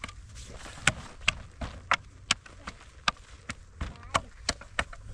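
A series of sharp knocks, about two to three a second, starting about a second in and stopping just before the end, over a steady low rumble.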